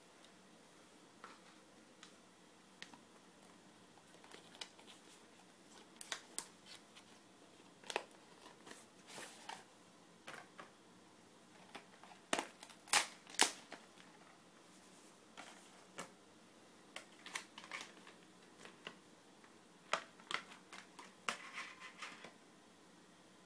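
Hands handling an iPod Shuffle dock and its plastic packaging: scattered small clicks, taps and light rustles of plastic, with a denser run of sharper clicks about halfway through.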